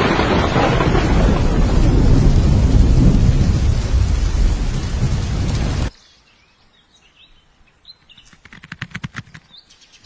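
Loud, deep rumbling noise like thunder with rain, which cuts off suddenly about six seconds in. It is followed by faint bird chirps and a quick run of clicks near the end.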